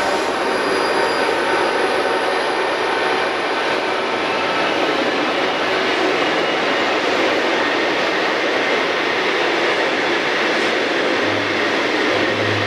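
Diesel-hauled freight train of loaded flat wagons rolling past at speed: a steady rushing and rattling of wheels on rail. A low hum comes in near the end.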